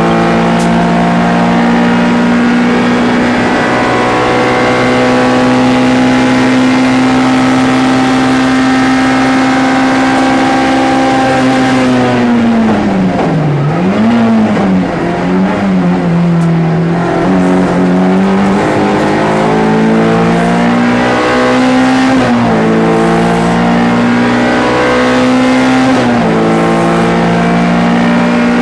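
MG ZR 105 race car's 1.4-litre four-cylinder engine held at high revs for about eleven seconds. The revs then fall steeply, with two quick blips, as on braking and downshifting into a corner. It pulls again, with the note dropping and climbing at upshifts twice near the end.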